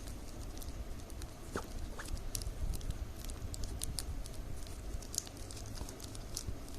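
Strips cut from milk powder bags crinkling and crackling as they are folded and woven by hand: irregular small crackles and ticks.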